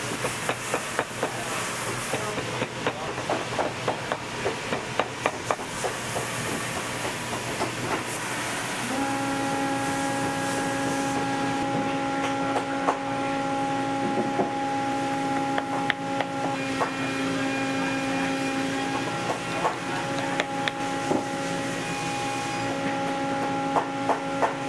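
Lasting pliers tapping and clicking as a leather boot upper is stretched over the last and tacked down, over a steady hiss. About nine seconds in, a steady machine hum starts and carries on underneath.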